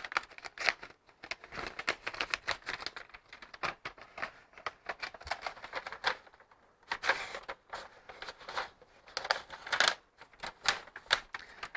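Paper and plastic packaging being handled and rustled, a run of quick crinkles and clicks that pauses briefly about six seconds in.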